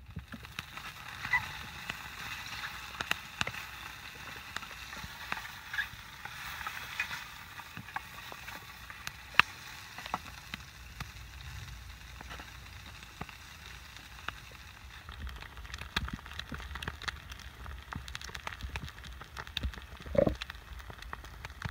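Food sizzling in oil in a pan over a small wood-burning twig stove, a steady hiss broken by many sharp crackles and pops from the fire and the hot fat. There is a brief knock near the end.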